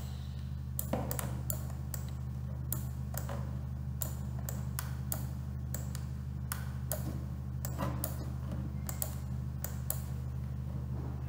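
Computer mouse buttons clicking at irregular intervals, one or two clicks a second, as strokes of a signature are drawn with the mouse, over a steady low hum.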